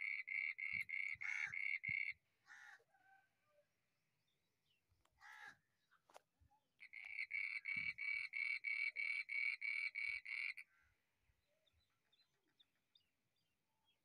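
An animal call repeated in a steady rhythm, about three to four calls a second, in two bouts: the first stops about two seconds in, and the second runs from about seven seconds to just past ten and a half.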